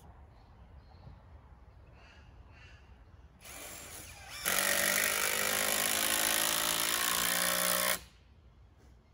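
Power drill run into the timber frame of a coop: a brief slower start, then about three and a half seconds at steady full speed, stopping abruptly.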